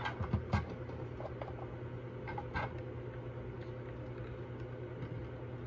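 A few light clicks and knocks of the monitor's plastic housing and parts being handled and set down, mostly in the first few seconds, over a steady low hum.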